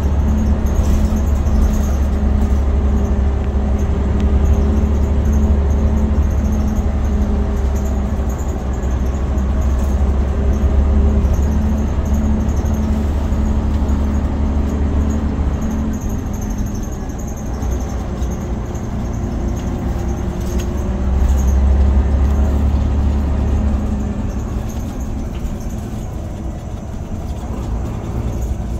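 Scania OmniCity bus heard from inside the passenger saloon: its rear-mounted 9-litre five-cylinder diesel running under way, a steady low drone with road noise. It quietens a little past the middle, pulls harder again a few seconds later, then eases off near the end.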